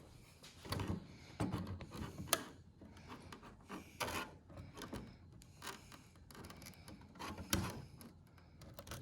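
Pliers working a small metal pin out of a Robart-style plastic pin hinge: a scatter of faint clicks and scrapes, with one sharper click a little over two seconds in.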